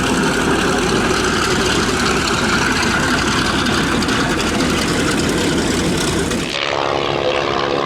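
Cessna 182Q Skylane's six-cylinder piston engine and propeller running loud as the plane departs. About two thirds of the way through it cuts abruptly to a second single-engine propeller plane, a Van's RV-10, with a steadier, more even engine tone.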